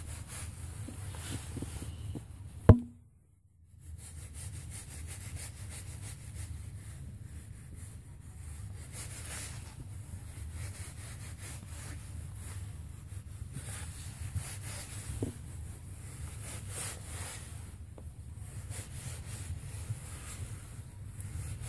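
Fingertips rubbing and massaging leftover sheet-mask essence into facial skin close to the microphone, a continuous scratchy rubbing. A sharp knock comes about three seconds in, followed by a second of silence.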